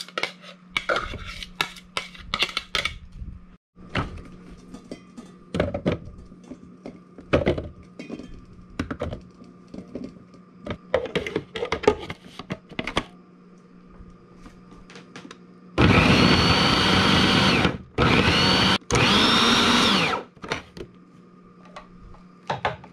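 Braun food processor pulsed three times in quick succession, its motor spinning up and winding down with each pulse as it chops cucumber chunks fine. Before the pulses there are scattered knocks and clatter as chopped cucumber is scraped out and the plastic bowl is reloaded.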